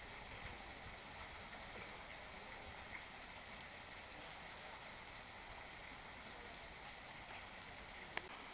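Steady, faint outdoor hiss with no distinct events, broken by one sharp click near the end.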